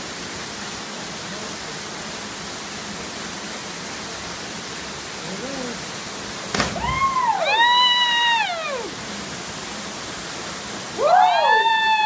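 Steady rush of a waterfall and stream. About two-thirds of the way in there is a sharp knock, then long high whooping shouts from people, with another loud shout near the end.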